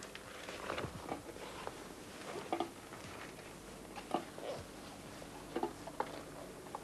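Handling noise as a filter smoke hood is pulled down over a test dummy's head: soft rustling of the hood material with scattered light clicks and taps.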